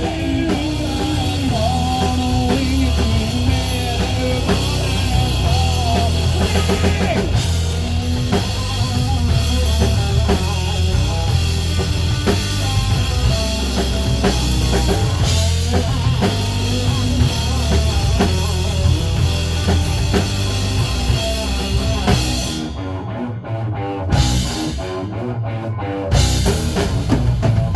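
Rock band playing with drum kit, bass and guitar, with singing in the first few seconds. Near the end the song breaks into a few separate loud hits with gaps between them, then stops as the last song of the set finishes.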